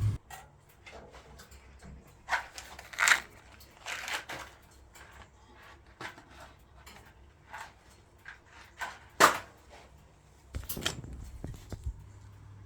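Scattered knocks and clatters of metal parts being handled on an old floor-standing gas boiler, a handful of separate sharp hits spread over several seconds. A faint low hum comes in near the end.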